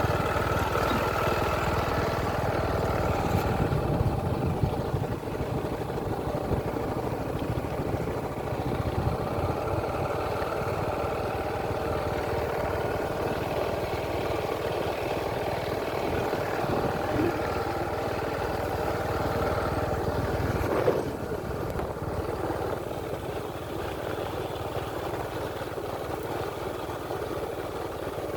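An engine running steadily with a low rumble, which eases off about three-quarters of the way through while the engine keeps going.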